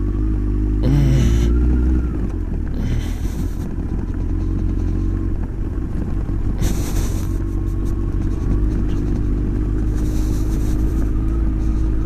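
Motorcycle engine running steadily under way, heard on board over a heavy low rumble of wind and road noise, with short hisses about one, three and seven seconds in.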